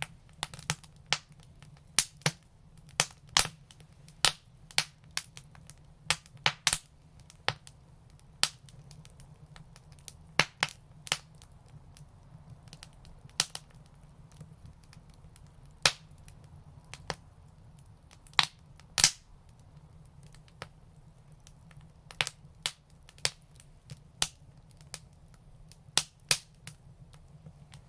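Wood fire crackling, with irregular sharp pops, a few a second and some much louder than the rest, over a low steady rumble.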